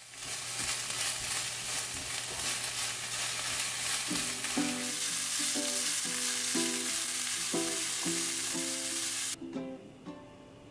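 Ground pork and corn sizzling in a square frying pan as a spatula stirs it; the steady sizzle cuts off suddenly near the end. Soft plucked-string music comes in about four seconds in.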